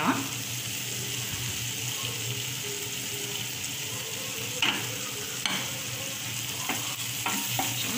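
Onion-tomato masala sizzling steadily in oil in an aluminium kadai. Two short knocks of utensils against the pan come a little past halfway.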